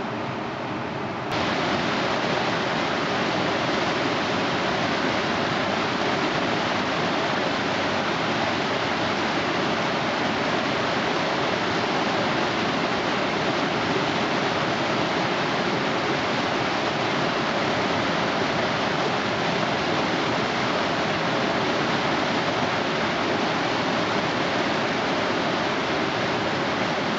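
Whitewater rapids of a river standing-wave park rushing steadily, stepping up in level about a second in and then holding even.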